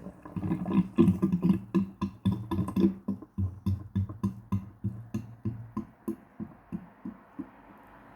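Sink drain gurgling and burping as the water runs out: a run of low glugs, about three a second, that grow weaker and further apart toward the end.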